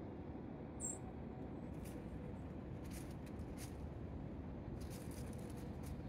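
Quiet woodland ambience: a steady low rumble with scattered light crackles, most of them near the end, and one short high chirp about a second in.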